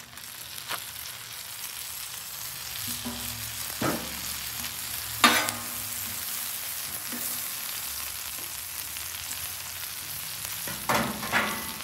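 Butter sizzling steadily as it melts on a flat-top griddle heated to about 450 °F, with a few short scrapes of a metal spatula on the steel, the loudest about five seconds in.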